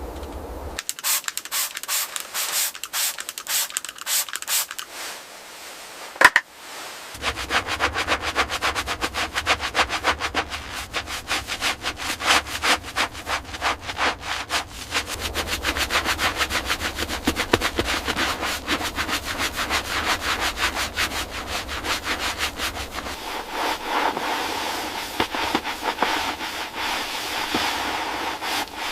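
Fast, repeated rubbing strokes on a surface, like scrubbing or sanding by hand, going on almost without pause. A single sharp click sounds about six seconds in, and a low hum runs underneath after it.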